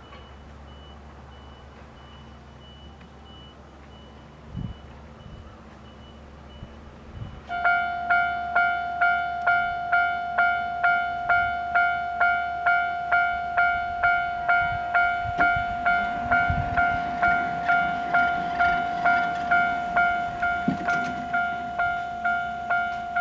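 Railway level-crossing warning bell starting about seven and a half seconds in, ringing a steady two-tone strike about twice a second. Before it, low wind noise on the microphone.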